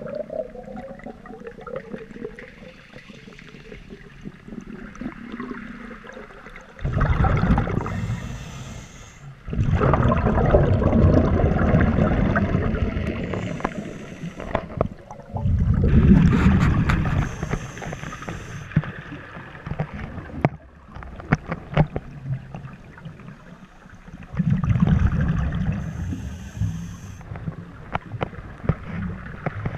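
Scuba diver breathing on a regulator underwater, heard in several long bursts a few seconds apart: exhaled bubbles gurgle and fizz with a deep rush, and quieter water noise lies between breaths.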